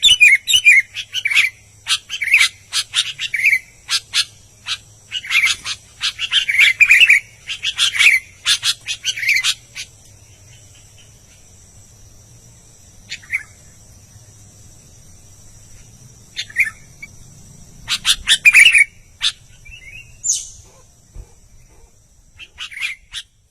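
Albino sooty-headed bulbul (kutilang) singing in quick bursts of chirpy phrases for about ten seconds, then only a few short calls with pauses between. A faint steady high tone runs beneath and stops near the end.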